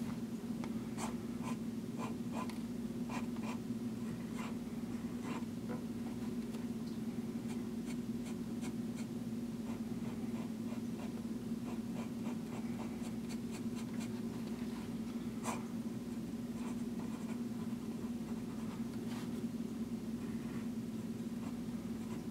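Vintage Waterman 754 fountain pen's flexible gold nib scratching across Rhodia dot-grid paper in short strokes, lines and cross-hatching, over a steady low background hum.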